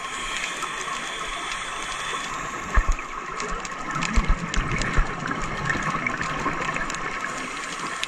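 Underwater sound on a scuba dive: a steady watery rush with the divers' bubbling, and a few short low thumps in the middle.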